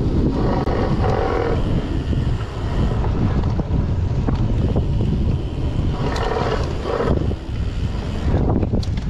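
Wind buffeting the camera microphone while a gravel bike rides fast along a bumpy forest dirt trail, with the rumble of the tyres and the rattle of the bike over the uneven ground. Two brief higher-pitched sounds come through, about a second in and about six seconds in.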